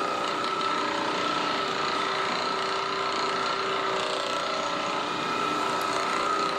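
A small electric motor running steadily, giving an even whine over a buzzing rattle that holds the same pitch and level throughout.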